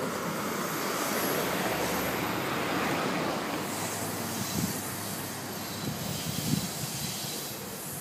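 Freight cars rolling across a railroad bridge overhead: a steady rumble and rattle of steel wheels on rail, easing after the first few seconds, with a few sharper knocks in the second half.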